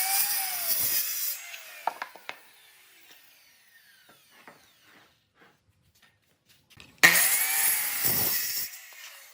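A power tool cutting wood in two short bursts, each about a second and a half long, the second about seven seconds after the first, with its pitch rising and then dropping during each cut. Small knocks are heard between the bursts.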